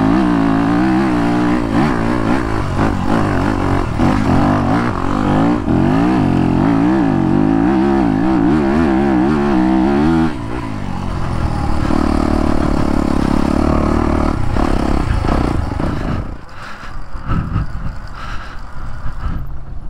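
Yamaha YZ250FX's 250cc four-stroke single-cylinder engine running on the move, the revs wavering up and down for about ten seconds, then holding a steadier note. About sixteen seconds in the engine note stops, leaving uneven wind noise and clatter.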